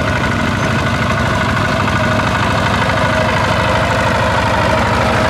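Single-cylinder diesel engine of a two-wheel walking tractor running steadily under load as it pulls a plough through wet paddy mud, a rapid, even chugging.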